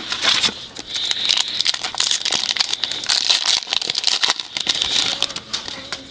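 Foil trading-card pack wrapper being torn open and crinkled in the hands, a dense run of crackling with many small sharp clicks.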